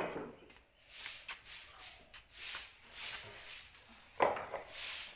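Grass broom sweeping a bare floor: a run of quick brushing swishes, roughly two a second, with one sharper knock about four seconds in.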